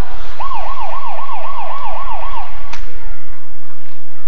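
Ice rink scoreboard siren warbling up and down about five times a second for about two seconds, sounding the end of the game as the clock runs out in the third period. A sharp click follows shortly after it stops.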